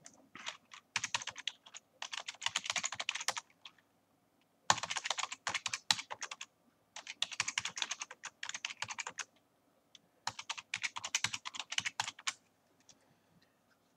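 Typing on a computer keyboard: four quick runs of key clicks with short pauses between them.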